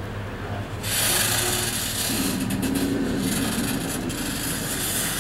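Freight car rolling slowly past on the rails during yard switching. Its steel wheels make a harsh grinding, hissing scrape on the track that starts abruptly about a second in, over a low steady hum. A wavering lower groan joins from about two seconds in.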